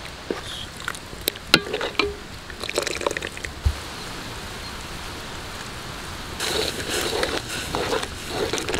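Thick tomato-onion masala gravy boiling in a metal pan, with bubbles popping in scattered clicks as it thickens toward gravy consistency. In the last couple of seconds a metal ladle stirs and scrapes through it.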